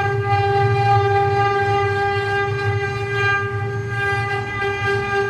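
CNC wood-carving router's spindle running with a steady, high whine, over a low rumble from the machine.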